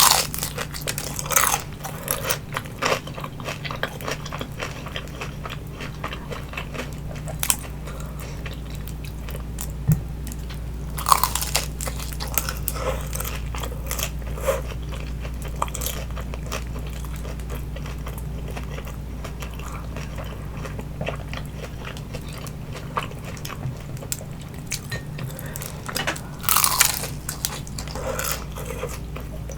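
A person biting into and chewing crispy oven-baked vegetarian spring rolls, with sharp crunches now and then, loudest at the start, about eleven seconds in and near the end, and quieter chewing between, over a steady low hum.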